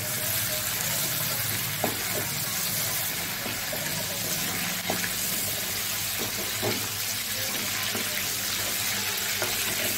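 Prawns sizzling steadily in hot mustard oil in an aluminium kadai, with a few light knocks of a wooden spatula against the pan as the prawns are lifted out.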